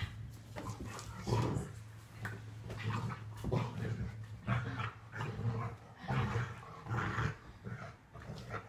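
Dog growling in repeated bursts while tugging on a toy: play growls during a game of tug.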